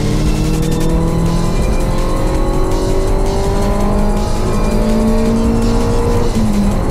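Honda Civic engine pulling hard through a gear, its pitch rising steadily for about six seconds and dropping near the end.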